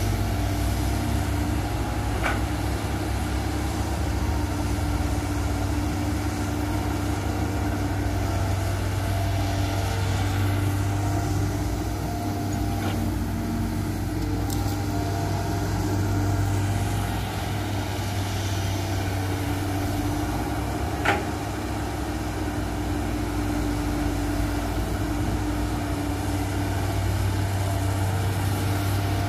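Hitachi hydraulic excavator's diesel engine running steadily under load as it digs and swings wet soil, with a few brief sharp knocks, the loudest about two-thirds of the way through.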